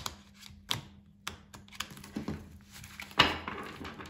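A deck of oracle cards being shuffled by hand on a wooden table: scattered clicks and taps as the riffled halves come together and the deck is squared, with a sharp snap about three seconds in followed by about a second of fluttering cards.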